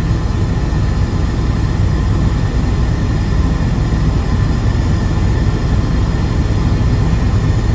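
Helicopter in flight, heard from inside the cabin: a loud, steady low drone that does not change.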